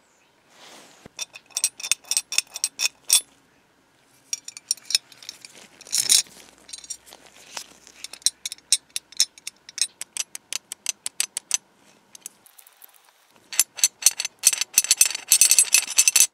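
Antique brass ice box latch being worked by hand, its metal parts giving runs of sharp small clicks and snaps, several a second. There are three runs, and the last one near the end is the densest.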